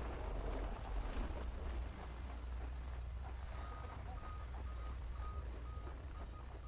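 A steady low rumble with hiss. From about three and a half seconds in, a vehicle's reversing alarm beeps about twice a second.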